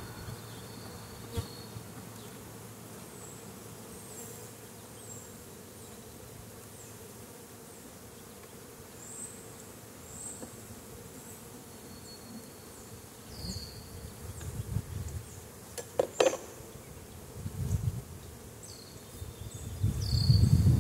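Honeybees buzzing steadily over an open nuc colony, with a sharp click about three-quarters of the way through.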